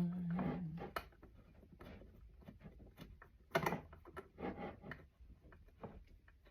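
Handling of wooden pedalboard parts and screws: scattered light knocks, clicks and rubs of wood, with a brief low rising hum at the start.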